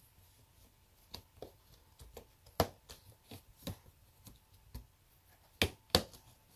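Plastic pleat-spacer fins of an Aprilaire 201 furnace filter being snapped by hand into the clips on the filter frame: a string of light clicks and snaps, the two loudest about a third of a second apart near the end.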